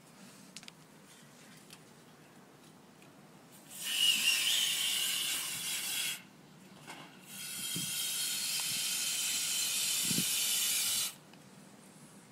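Butane lighter-refill can hissing as liquid gas is sprayed through its nozzle into a rubber balloon, in two long bursts with a short break between, the second longer; a faint whistle rides on the hiss.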